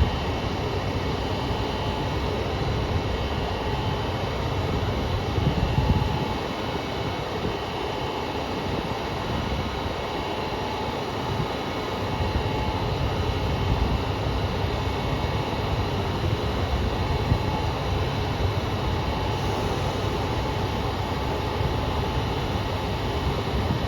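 KiHa 200 diesel railcar idling at the platform, a steady engine rumble with a constant whine over it; the unit is giving off an abnormal noise from car KiHa 200-1551 throughout.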